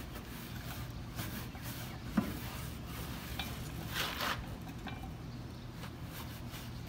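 A brush scrubbing inside a car's wheel well, wet with sprayed all-purpose cleaner: a scratchy rubbing in short strokes, with one louder stroke about four seconds in and a light click about two seconds in.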